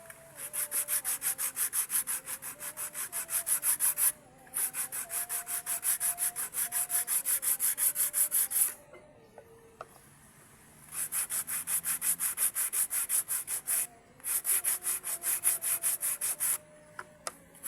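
Sanding with quick, even back-and-forth strokes, about eight a second. It comes in runs of three to four seconds, with short pauses about four seconds in, a longer pause around nine to eleven seconds, and brief breaks near fourteen and seventeen seconds.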